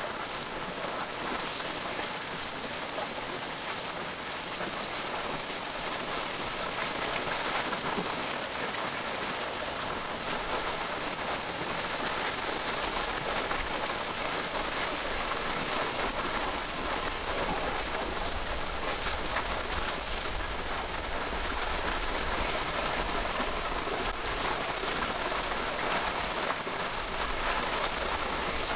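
Steady rain falling, growing a little louder about halfway through as a low rumble joins in.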